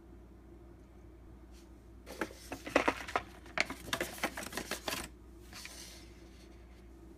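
Paper-foil lid of a cup ramen being peeled back off the rim, a quick run of crackling, crinkling rustles lasting about three seconds.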